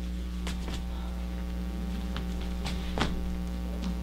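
Steady electrical mains hum, with a handful of faint taps or knocks, the clearest about three seconds in.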